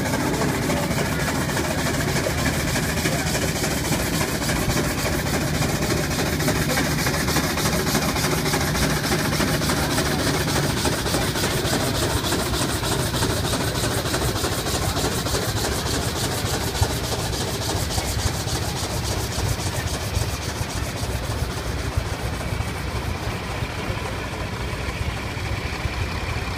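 Heavy tractor-pull machinery running: engines at work with a steady mechanical din and a low hum that fades out about eleven seconds in.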